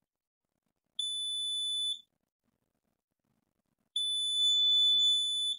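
Multimeter continuity beeper sounding twice, each a steady high-pitched tone: one of about a second, then one of about a second and a half. It sounds each time the test probes on the laptop motherboard meet a low-resistance path.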